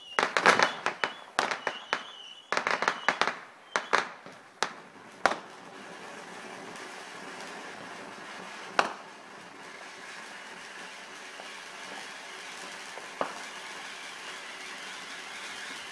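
Ground fountain firework going off: a quick run of sharp crackles and pops for the first five seconds or so, then a steady spraying hiss with an odd single crack.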